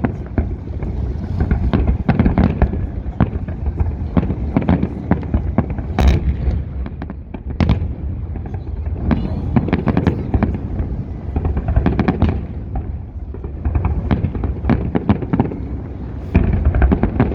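Large fireworks salute: shells launching and bursting in a rapid, uneven string of deep booms and sharp cracks, often overlapping. One louder crack comes about six seconds in, and a close cluster of bursts near the end.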